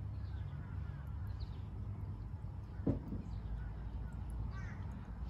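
Birds chirping in short scattered calls over a steady low rumble, with one short, louder sound about three seconds in.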